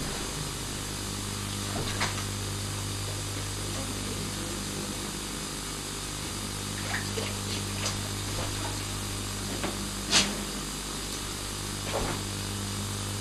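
Bath tap running into a bubble-filled bath, a steady hiss of pouring water. A few short sharp noises come from a dog moving about in the water, the loudest about ten seconds in.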